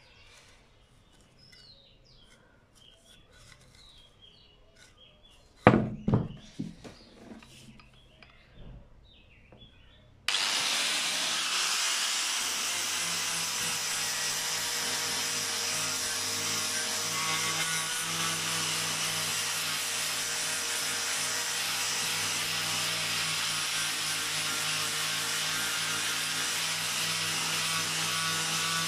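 A sharp knock about six seconds in. About ten seconds in, an angle grinder starts abruptly and runs steadily with its abrasive disc sanding the face of a pine board, giving a constant motor hum under the grinding of the disc on the wood.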